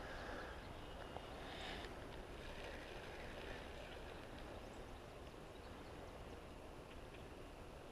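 Faint, steady outdoor background noise with no distinct event.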